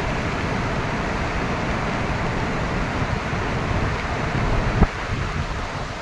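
Waterfall in flood, a heavy volume of water pouring down a rock gorge: a loud, steady rushing noise. A brief knock is heard a little before five seconds in.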